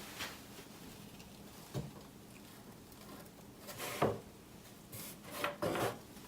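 Handling noises as a flower stem is bent: a soft knock about two seconds in, then rubbing and a light knock around four seconds, and a couple more knocks and rubs near the end.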